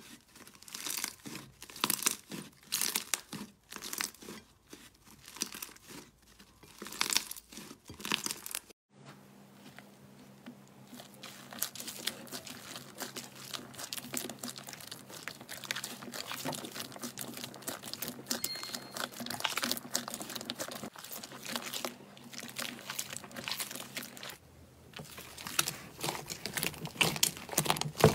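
Slime being kneaded, squeezed and stretched by hand in a glass bowl: sticky crackling, snapping and tearing sounds. The crackle is made of separate sharp pops at first, turns to a denser, steadier crackle about nine seconds in, and goes back to louder separate pops near the end.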